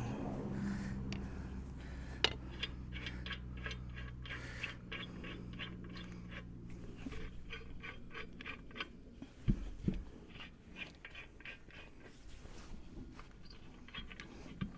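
Metal scraping and clicking as heavy-truck lug nuts with flange washers are handled and spun on, with two heavier knocks about nine and a half and ten seconds in. A low steady hum underneath stops about nine seconds in.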